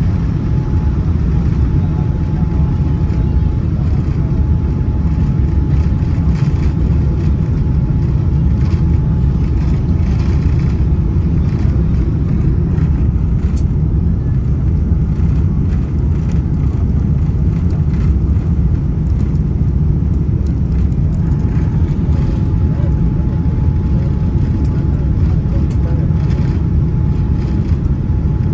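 Steady roar of a Boeing 787 jet airliner's engines and airflow heard inside the cabin, deep and unchanging. A faint steady whine rides on top; it drops away after a few seconds and comes back about two-thirds of the way through.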